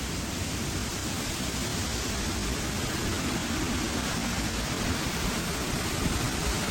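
Waterfall rushing: a steady, even hiss.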